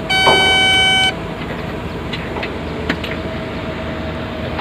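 A horn sounds once, a steady high tone lasting about a second, near the start, over the steady running of excavator engines.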